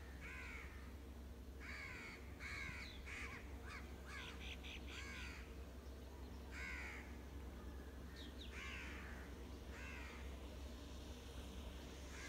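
A bird calling repeatedly: about a dozen short calls, each falling in pitch, some in quick runs, over a steady low hum.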